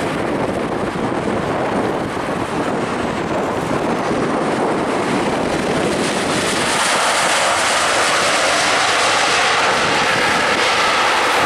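Boeing 737-800 jet airliner's CFM56 turbofan engines during landing: a steady loud jet rush through touchdown, growing louder and higher about seven seconds in as the aircraft rolls out on the runway.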